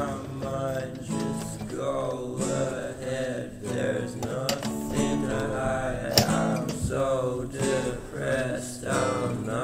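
Background music: a song carried by strummed acoustic guitar.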